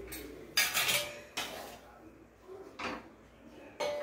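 A metal serving utensil clinking and scraping against a metal kadhai while noodles are lifted out, in a few separate short clatters, the loudest a little under a second in.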